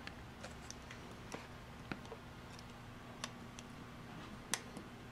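Faint, scattered small clicks and taps of fingers working the iPad 2's digitizer ribbon cable into its connector on the logic board, the sharpest click about four and a half seconds in, over a faint low hum.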